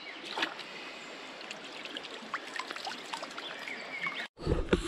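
Shallow river water running and trickling, with small splashes and ticks as the fish is handled in the water. Near the end the sound cuts out for a moment, then a louder low rumble follows.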